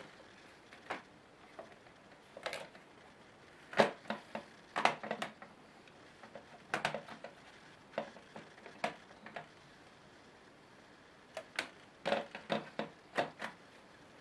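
Irregular clusters of sharp plastic clicks and taps from hands handling and pressing on a laptop's keyboard deck and case. The loudest snap comes about four seconds in, with further bunches of clicks near seven, eight and twelve to thirteen seconds.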